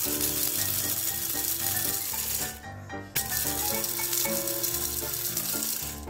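Small electric blender grinding dry bird pellets into powder, running in two bursts with a short stop about two and a half seconds in. Background music plays underneath.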